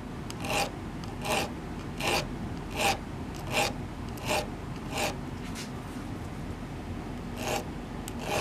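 Diamond file rasping back and forth on the steel tip of a Stanley screwdriver, filing out a small defect. The strokes come in a steady rhythm of about four every three seconds, then pause for about two seconds before one more stroke near the end.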